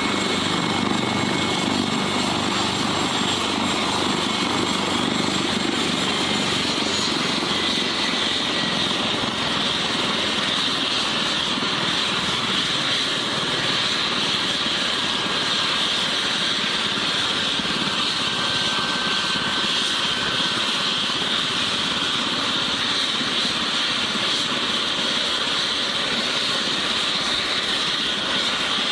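Boeing MH-139A Grey Wolf helicopter running on the ground with its rotors turning: a steady high turbine whine over the even noise of the rotor and engines, with a faint thin tone that slowly slides lower in pitch.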